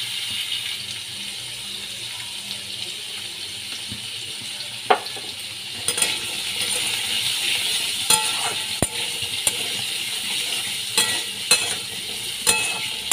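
Diced potatoes sizzling in hot oil in a kadai, stirred with a metal spatula that clinks and scrapes against the pan several times.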